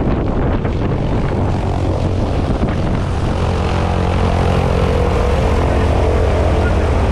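Skydiving plane's propeller engine running with a steady drone, with gusty noise over it for the first few seconds; about three seconds in the drone grows slightly louder and evener.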